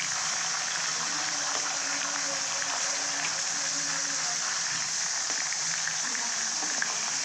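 Fish pieces frying in hot oil: a steady sizzle with small scattered crackles.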